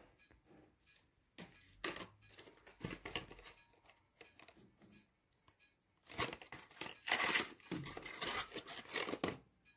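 A small cardboard product box being handled and opened by hand: scattered taps and light rustles, then a denser stretch of cardboard and paper rustling and tearing from about six seconds in.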